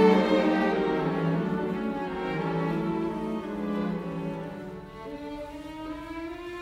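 Background music on bowed strings, violins and cellos holding long notes and growing quieter.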